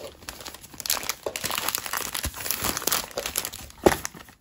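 Plastic packaging and thin foam wrap crinkling as they are handled and folded by hand, with a sharp knock near the end.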